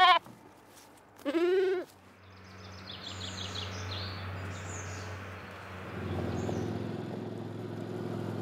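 A lamb bleats twice, the second bleat about a second and a half in, and it is the loudest sound. Then birds chirp, and from about six seconds in a quad bike's engine is heard approaching, running steadily and growing louder.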